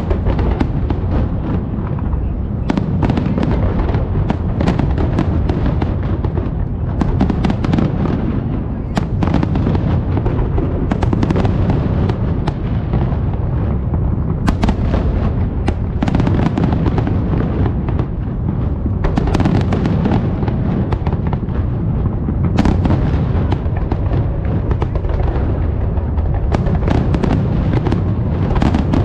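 Large aerial fireworks display in a dense barrage: sharp cracks from many overlapping shell bursts over a continuous low rumble.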